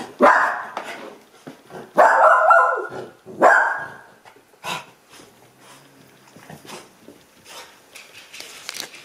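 Beagle-pug cross dog barking: three loud barks in the first four seconds, the second one drawn out, then only faint small sounds.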